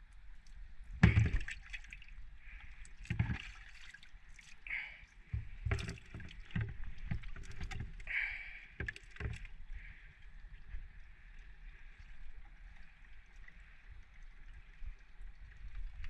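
Plastic water bucket knocking and bumping against a boat's deck as it is lifted by an octopus clinging to it with its suckers and set down again, with water sloshing inside; a string of hollow knocks, the loudest about a second in, over a steady faint hiss.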